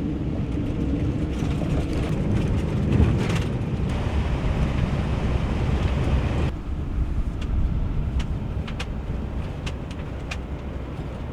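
Camper van driving: steady road and engine rumble. About six and a half seconds in, the sound changes abruptly and the higher hiss drops away.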